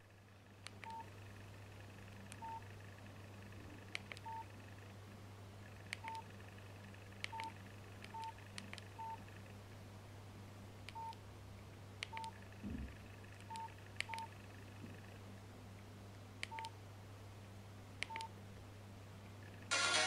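Nokia 6500 slide phone's keypad tones: about a dozen short single beeps, all at one pitch and spaced irregularly, as keys are pressed to step through the menus, with soft key clicks between them and a low steady hum under them.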